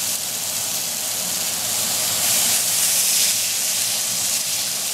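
Ribeye steak sizzling steadily as it sears in a hot cast iron skillet on high heat, a dense hiss that swells a little about halfway through.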